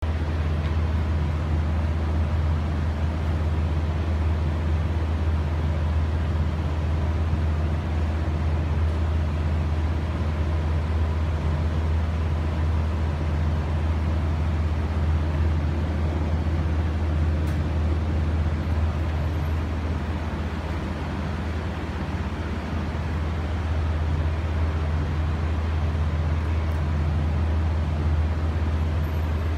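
Small exhaust fan running steadily: a constant deep drone with a thin, faint whine above it.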